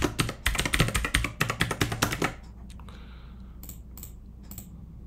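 Typing on a computer keyboard: a quick run of keystrokes for about two seconds while a password is entered, then a few single key clicks a little later.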